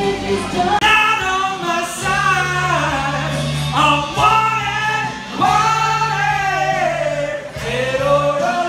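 Background pop song with a sung vocal line over a steady bass accompaniment.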